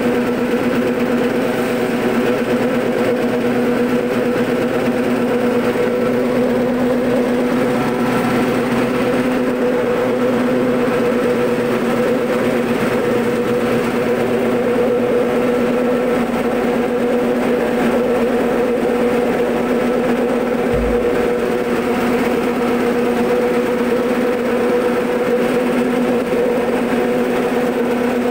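Soybean splitting and hull-separating machine running steadily: a motor's constant hum with a rushing rattle of split soybeans pouring down its stainless-steel chute. There is one brief low bump about three-quarters of the way through.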